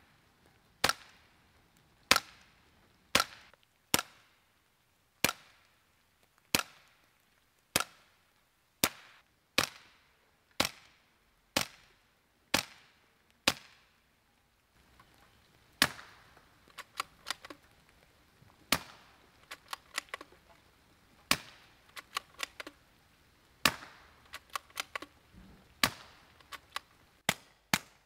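Suppressed .22 LR shots from a Remington 597 semi-automatic rifle fitted with a TBA Peacemaker rimfire suppressor. Each is a sharp crack with a short ring. The shots come about once a second, then pause for a couple of seconds, then a second string follows that is less even, with some shots close together in pairs and quicker shots near the end.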